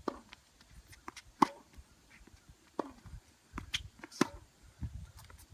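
Tennis balls being hit in a rally: sharp racket-on-ball strikes and bounces, a knock about every second, the loudest about a second and a half in.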